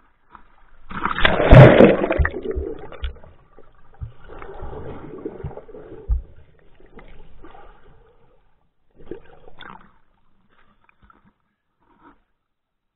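Water splashing and sloshing against an action camera in its waterproof case as a swimmer takes it under the surface and back up, with low thumps. It is loudest about a second in, then thins to scattered small splashes.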